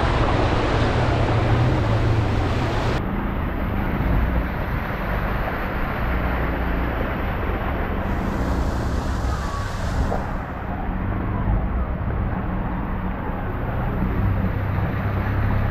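Road traffic in a flooded street: the engines of a car and motorcycle tricycles driving through floodwater, over a steady low rumble and hiss. The sound changes abruptly about 3, 8 and 10 seconds in.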